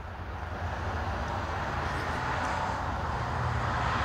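Steady low rumble of a passing vehicle's engine, slowly growing louder.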